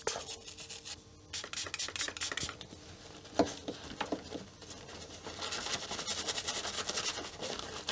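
A small brush scrubbing across the solder side of a freshly soldered circuit board, cleaning it off, then the board rubbed in a paper towel, with quick scratchy strokes. A single sharp knock about three and a half seconds in.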